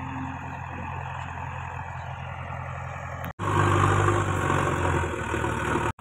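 JCB 3DX backhoe loader's diesel engine running steadily. A little over three seconds in, the sound cuts off abruptly and returns louder, the engine working harder as the loader tips its bucket.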